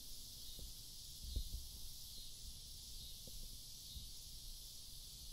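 Faint steady high hiss, with a few soft low thumps.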